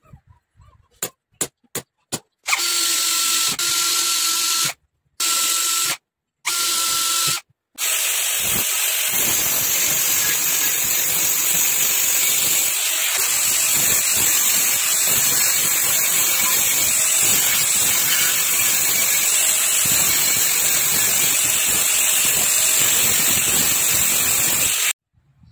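Angle grinder with an abrasive cut-off disc cutting steel. After a few light clicks, the motor whines at a steady pitch in short spells that stop and start abruptly. Then comes a long, continuous harsh grinding as the disc cuts through the metal, which cuts off abruptly near the end.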